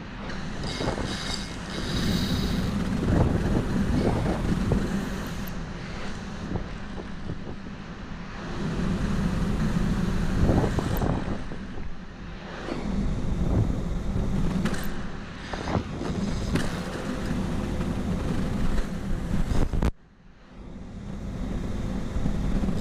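Wind buffeting the microphone in gusts, a loud low rumble that swells and fades, with a few sharp clicks. It drops away abruptly for a moment near the end, then returns.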